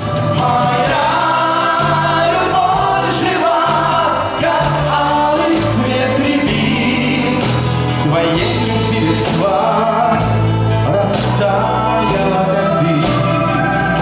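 Soviet-style vocal-instrumental pop ensemble playing live: men's voices singing a melody over electric bass, electric guitar, keyboards and a drum kit, with a steady bass line that changes note about once a second.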